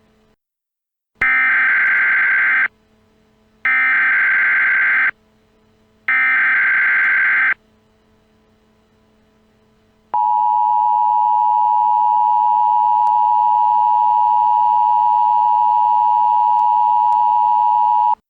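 Emergency Alert System tones: three identical bursts of SAME header data, each about a second and a half long with a short pause between, then the steady two-tone EAS attention signal held for about eight seconds.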